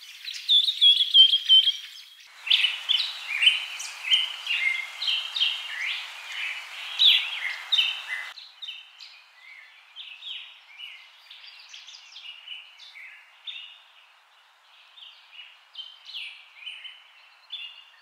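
High-pitched chirping calls throughout: a bald eagle's short descending chatter of piping notes, then a long run of quick, sharp chirps and squeaks.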